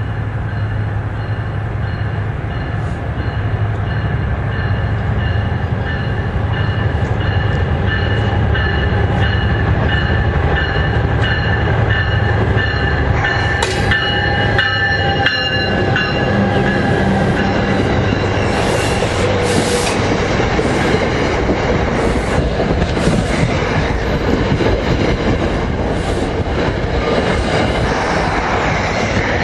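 A train rolling past close by. A steady low drone runs throughout, with high wheel squeal over roughly the first half that then fades, and wheels clicking over rail joints.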